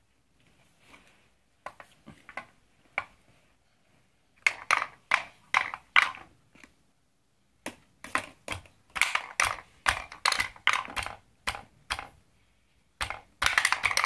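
Wooden balls clattering down the zigzag ramps of a wooden pound-a-ball tower, with hands knocking on its wooden top. Rapid clicks and knocks come in bursts: about four seconds in, again from about eight to eleven seconds, and near the end.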